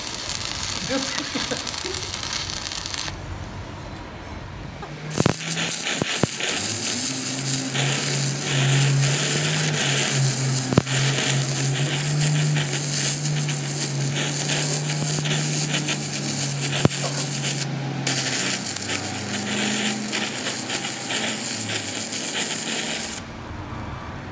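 Electric arc welding on a truck rear axle flange, building up weld metal in the hub: a dense crackling hiss over a low steady hum. It breaks off for about two seconds early on, restarts about five seconds in with a couple of sharp pops, and stops shortly before the end.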